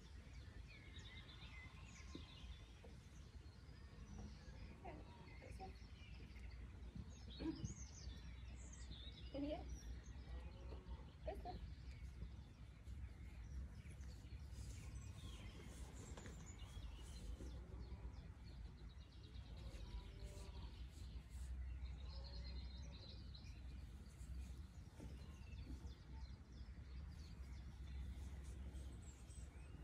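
Quiet outdoor ambience: a steady low rumble with birds chirping and calling faintly.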